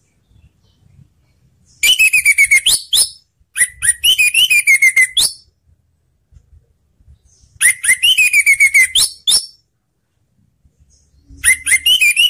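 Orange-headed thrush singing: four loud phrases of rapid, quick-fire notes with sliding pitch, each lasting about a second and a half, with short pauses between.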